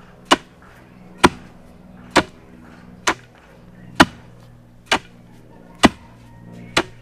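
Long wooden pestle pounding nuts in a large mortar: eight sharp thuds in a steady rhythm, about one a second.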